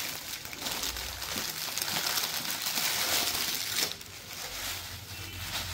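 Packaging crinkling and rustling as a boxed T-shirt is unwrapped by hand, busy with small crackles, dying down about four seconds in.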